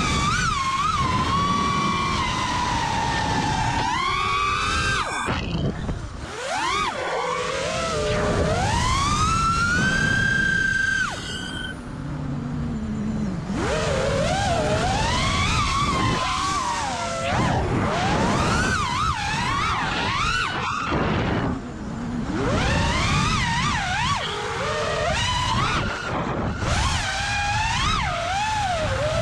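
FPV racing quadcopter's brushless motors whining, the pitch sweeping up and down sharply with throttle punches and drops, with short lulls where the throttle is cut.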